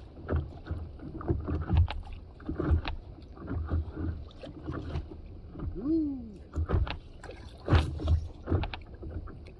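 Paddle strokes splashing in the sea beside an inflatable stand-up paddleboard, about one stroke a second, on slightly choppy water.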